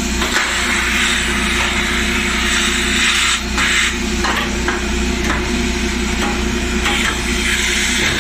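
Shop vac running and sucking debris out of a dryer cabinet, a steady rush that dips and changes briefly as the nozzle moves, over a steady low hum.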